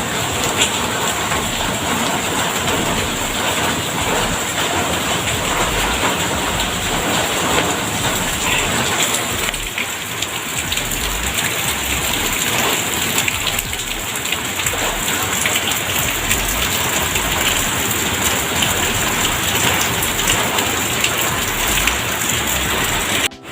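Heavy, steady rain pouring down, an even dense hiss of drops on surfaces; it drops out for a moment at the very end.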